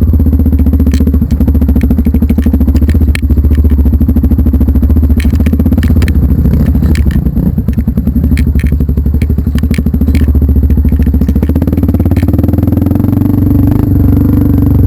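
Vehicle engine running steadily under load over a rough trail, with rattling and scattered knocks as the vehicle jolts.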